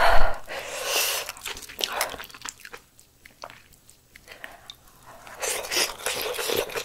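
Close-miked eating of malatang hot pot: wet chewing and mouth clicks as noodles and broth are taken in. Louder at the start and again in the last second and a half, quieter in between.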